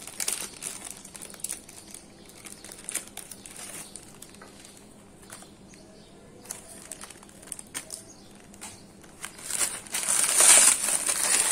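Plastic Mr. Noodles instant-noodle packet crinkling faintly as it is handled. About ten seconds in it turns to loud, dense crinkling and crunching as the dry noodle block is crushed inside the packet.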